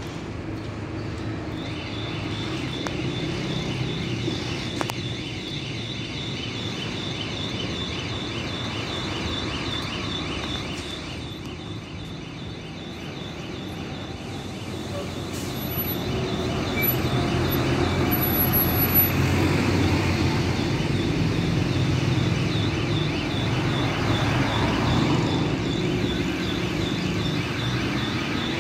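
Street traffic: an approaching city bus's engine running, growing louder about halfway through, with a fast, steady, high-pitched chirping over it.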